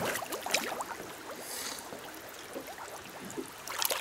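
Legs wading through shallow water over a muddy lake bed, with irregular splashing and sloshing.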